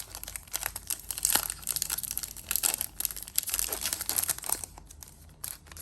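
Cellophane wrapper of a trading-card cello pack being torn open and crinkled by hand, a dense run of crackles that eases briefly near the end.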